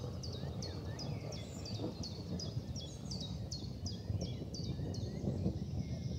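A small creature repeating a short, high, falling chirp about three times a second over a steady low rumble of background noise; the chirping stops near the end.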